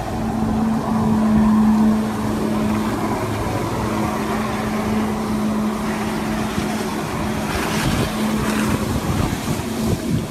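Jet ski engine running at steady high revs to drive a flyboard, a constant drone over the rush of water jets and spray.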